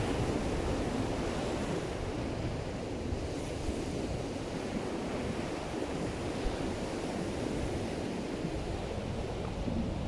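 Ocean surf breaking and washing up a sandy beach, a steady rush of noise, with strong wind buffeting the microphone in a low rumble.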